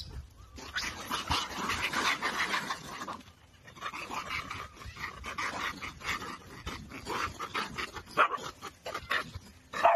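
A husky-type dog whining and yipping in two stretches with a short lull between, while it faces off with monkeys.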